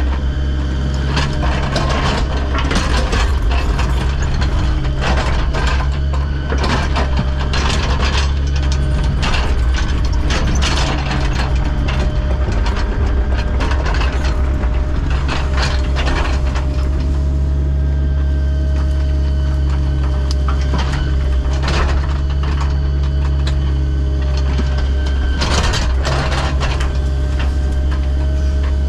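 Heavy earthmoving machine's engine running steadily, with frequent metal clanks and rattles that come thickest in the first half and again briefly near the end.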